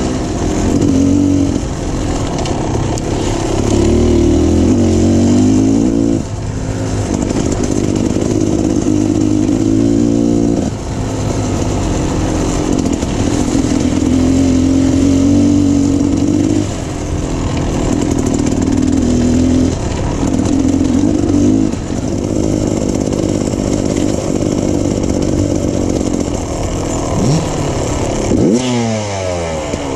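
Beta Xtrainer 300 two-stroke dirt bike engine being ridden on a trail, the throttle opening and closing in surges every few seconds. Near the end the pitch drops sharply and then climbs again.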